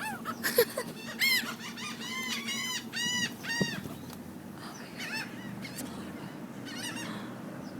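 Seagulls calling: runs of short, arched squawks, densest about one to three and a half seconds in, with scattered calls later over a low steady hum.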